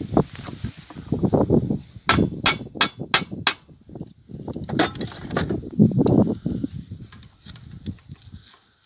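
Five quick metal-on-metal hammer taps, about three a second, on the rusted, seized head of a small wind turbine, trying to knock it loose from its mast. Low rumbling noise comes and goes around the taps.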